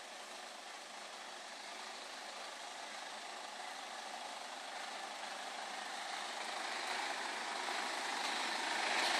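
Mazda Bravo 4x4 ute's engine running steadily at idle, growing gradually louder as it is approached.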